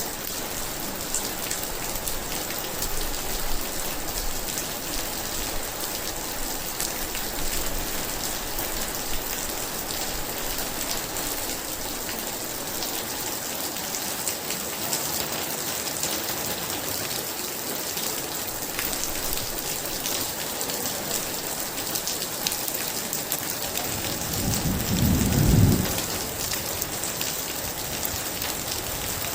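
Steady heavy rain pattering down, with one low roll of thunder swelling for about two seconds near the end.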